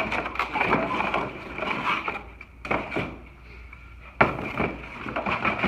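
Cardboard and packing paper rustling and crackling as a hand digs through a rifle's shipping box, with one sharp knock about four seconds in as the wooden-stocked rifle is set down in the box.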